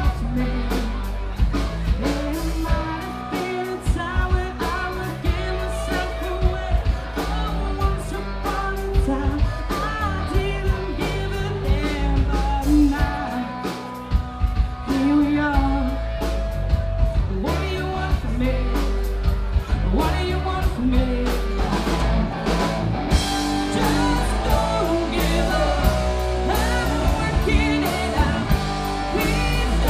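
A rock band playing a song with a lead vocal over drums, bass and guitar.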